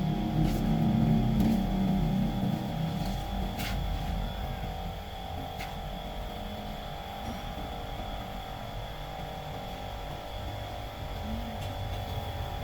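A steady mechanical hum holding several even tones, over a low rumble that is heavier for the first few seconds, with a few light clicks.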